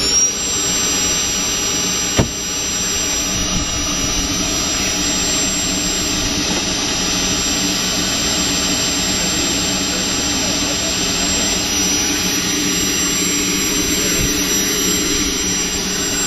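Turbine engine of the Blackbird turbine-hybrid car running at steady speed after spooling up: a steady high-pitched whine over a loud rushing exhaust blast. A single sharp click about two seconds in.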